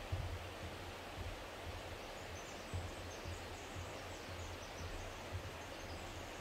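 Steady rush of a forest creek, with faint short high bird chirps through the middle and irregular low soft thumps.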